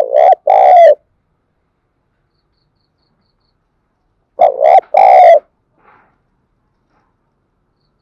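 Spotted dove cooing loudly, close up: a two-note phrase at the start, then about four seconds later a three-note coo of two short notes and a longer final one.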